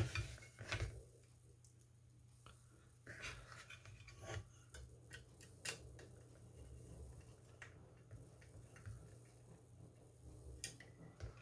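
Small hand screwdriver turning a screw into a model-car chassis part: scattered faint clicks and scrapes as the screw is driven and the parts are handled.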